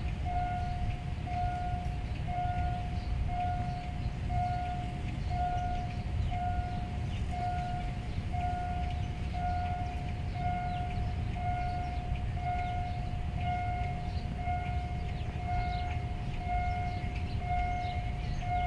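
Railway level-crossing warning signal sounding a repeated pitched tone about once a second, warning of an approaching train, over a steady low rumble.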